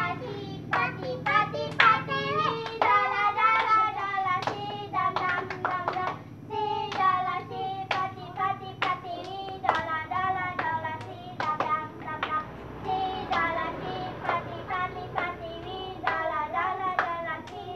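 Children singing a hand-clapping game song, with sharp hand claps keeping a regular rhythm under the singing.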